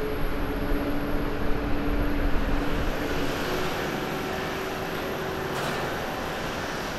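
Jet airliner engines running: the low rumble of a twin-engine jet climbing away, then about three seconds in a slightly quieter, steadier engine noise of a Japan Airlines Boeing 737-800 on its takeoff roll.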